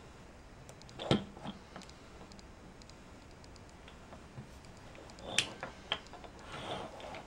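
Wooden burr puzzle pieces clicking and knocking against each other as they are slid into place, with one sharp knock about a second in. Near the end comes a cluster of clicks and a short scrape of wood sliding on wood.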